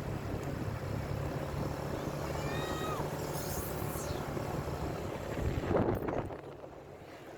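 A vehicle's engine running steadily, with a short high call about two and a half seconds in and a louder noise near six seconds, after which the sound quietens.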